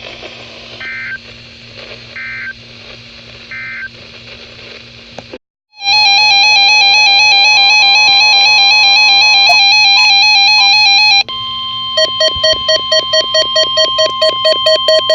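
Emergency Alert System data tones on a weather radio broadcast. First come three short two-tone data bursts over radio hiss, then a moment of dead air. After that come loud, distorted warbling data tones, then rapid pulsing beeps, about three a second, from about three-quarters of the way in.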